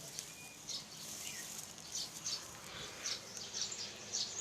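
Short, high-pitched chirps coming in small irregular clusters, from birds or young animals nearby.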